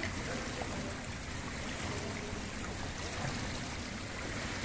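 Indoor swimming pool ambience: a steady wash of water noise as a swimmer moves through the water alongside a sea kayak.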